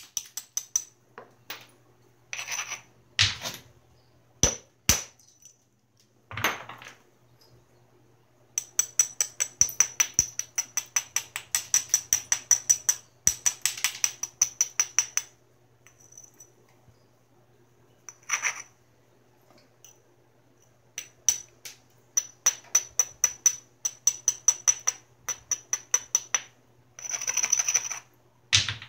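Georgetown flint biface being worked at its edge: runs of quick, light clicking strikes from a small hand tool, several a second, broken by pauses. There are a few longer scraping strokes along the edge, the longest near the end.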